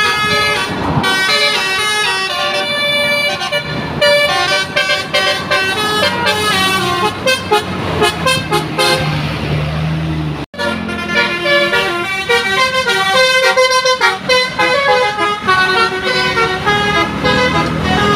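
Tour bus telolet horns, a set of multi-tone air horns, playing quick melodic tunes note after note over the bus engine. The sound drops out for an instant about ten seconds in, then the horn tunes carry on.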